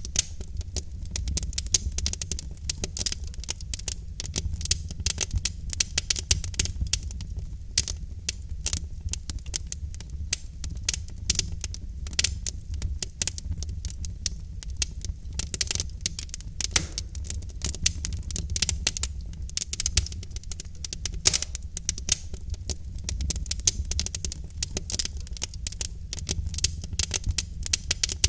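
Wood fire in a fireplace, logs burning with a continuous low rumble and dense, irregular crackling and popping throughout.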